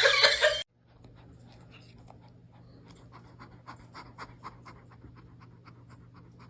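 Dog panting quickly and faintly, about six breaths a second, over a steady low hum. It begins just after a brief loud sound that cuts off abruptly at the start.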